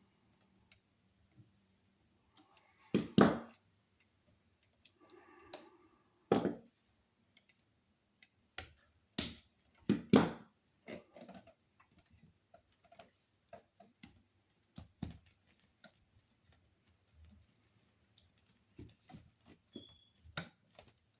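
Scattered clicks and knocks of a screwdriver and wires against a wall receptacle as its terminal screws are tightened down. The two loudest knocks come about three and ten seconds in.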